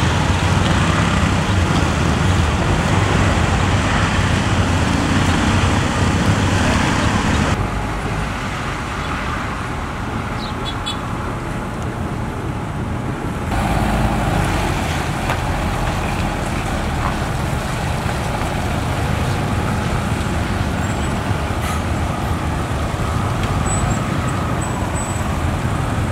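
Heavy diesel truck engines running steadily with a deep rumble. The sound changes abruptly twice, dropping quieter about seven and a half seconds in and coming back up about thirteen and a half seconds in.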